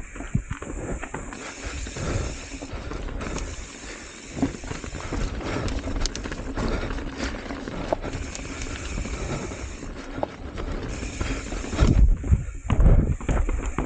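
Hardtail mountain bike rolling down a dirt singletrack: tyres crunching over dirt and stones, with the bike rattling and knocking. The heaviest knocks come about twelve seconds in, over a rooty, rocky patch.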